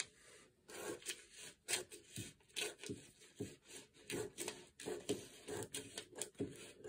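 Scissors cutting through a paper pattern: a steady run of short snips, about two to three a second.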